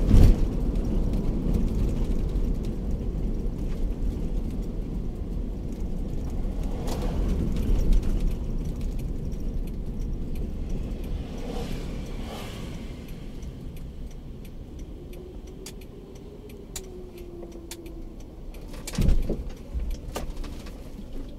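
Interior noise of a Daihatsu Terios driving slowly on a village road: a steady low engine and road rumble with a few sharp knocks. It grows quieter past the middle as the car eases off.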